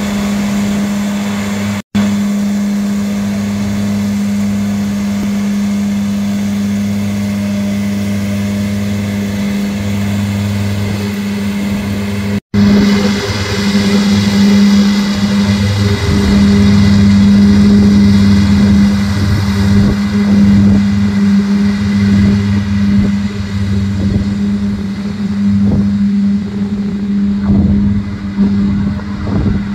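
Krone BiG M 450 self-propelled mower running at a steady engine speed while mowing green rye, a loud, even drone. Twice the sound breaks off for an instant; after the second break, about twelve seconds in, it is louder, with more rushing noise over the drone.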